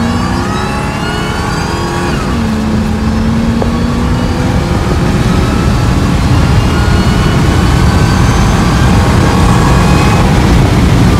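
Ford Lobo (F-150) PowerBoost hybrid's twin-turbo V6 under hard acceleration, heard inside the cab. The engine note climbs, drops back at an upshift about two seconds in, then climbs again more slowly over a heavy low road rumble.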